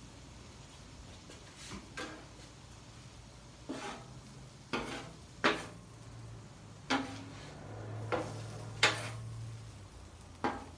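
Metal spatula scraping and clinking against a steel flat-top griddle as a pile of noodles and shrimp is tossed and mixed: a series of sharp, irregular strokes about every second or two.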